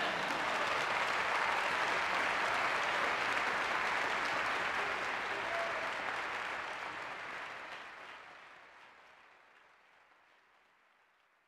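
Audience applauding with even clapping that fades away to silence near the end.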